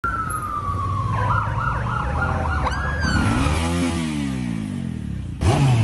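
Police siren sliding down in pitch, then warbling rapidly, over a steadily running motorcycle engine. About three seconds in an engine revs up and back down, and near the end a motorcycle revs sharply.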